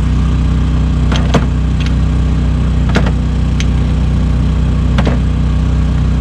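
A small motor running with a steady low drone, with a few sharp clicks about a second in, near the middle and about five seconds in.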